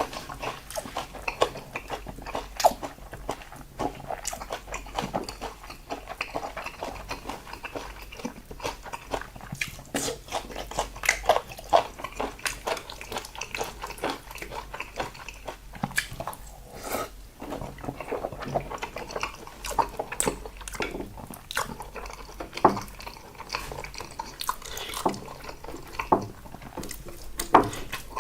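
Close-up eating sounds: irregular wet chewing and smacking of salted seafood, with many small clicks of the mouth and utensils.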